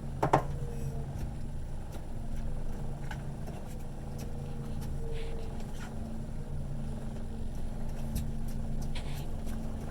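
Boat motor running steadily at trolling speed, a low even drone. A sharp knock sounds just after the start.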